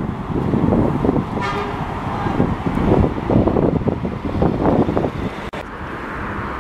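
A single short vehicle horn toot about a second and a half in, over gusty wind buffeting the microphone.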